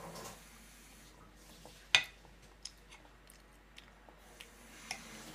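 Toddler chewing soft dumplings, faintly, with a sharp click about two seconds in and a few softer clicks of a fork poking into a bowl after it.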